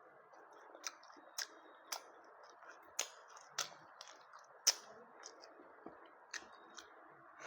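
A person eating close to the microphone: chewing with sharp crunches and mouth smacks, a dozen or so irregular clicks spaced about half a second to a second apart, over a steady background hiss.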